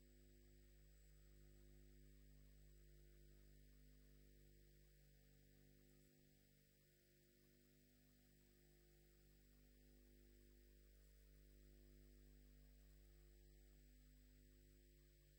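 Near silence with a faint, steady electrical mains hum and its overtones.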